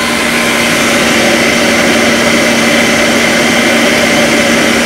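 Electric stand mixer running steadily at high speed, its whisk beating egg whites into a French meringue while sugar is added gradually.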